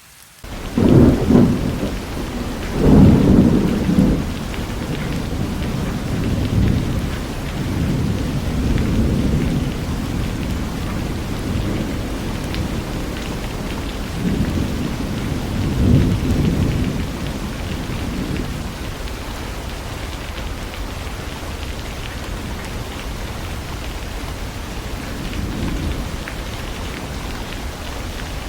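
Steady heavy rain with rolling thunder: loud rumbles about a second and three seconds in, another around sixteen seconds, then fainter rumbling under the rain.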